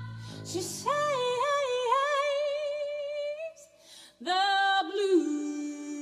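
A woman singing the closing phrases of a slow blues song almost unaccompanied, with wavering long notes; a low bass guitar note dies away in the first second. After a short breath a little past halfway, she holds a final long note that steps down once and sustains.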